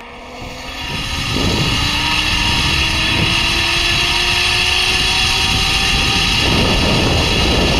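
Zipline ride: heavy wind rush on the microphone as the rider speeds along the cable, with a faint whine from the trolley's pulleys that climbs slowly in pitch as the ride picks up speed and fades about six and a half seconds in.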